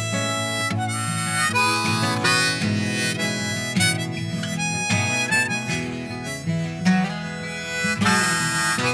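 Background music: a harmonica-led tune over strummed acoustic guitar.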